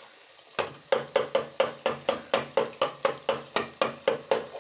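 Steel spoon knocking against a steel pan in quick, even strikes, about four to five a second, while stirring a bubbling masala. The knocking starts about half a second in.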